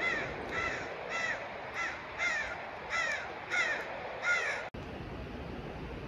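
A bird calling in a steady series of about eight calls, each sliding down in pitch, roughly two a second; the calls stop abruptly about three-quarters of the way through.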